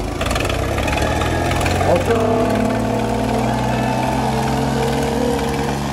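Two diesel tractors, a red Swaraj and a blue tractor, chained back to back and pulling against each other under full load, their engines held at a steady high drone. A loudspeaker voice rises over them from about two seconds in.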